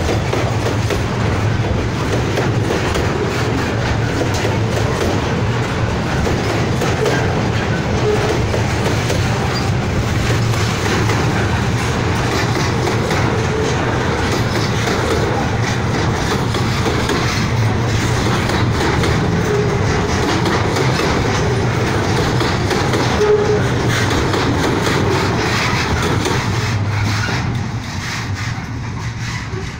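Freight train flatcars loaded with steel slabs rolling past, their steel wheels clattering steadily over the rail joints. The sound drops near the end as the last car goes by.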